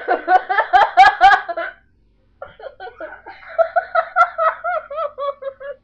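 A young woman laughing in two bouts of rapid, pulsing laughs: a loud burst in the first second and a half, then, after a short pause, a longer, quieter run of giggles that sinks in pitch near the end.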